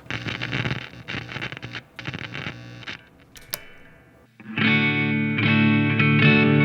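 Electric guitar played through distortion: scratchy, choppy strumming at first, then a loud, sustained distorted chord from about four and a half seconds in.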